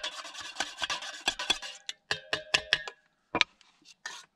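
A spoon clinking and scraping against cookware: a quick run of taps over a light hiss, then a few ringing clinks, and one sharp knock about three and a half seconds in.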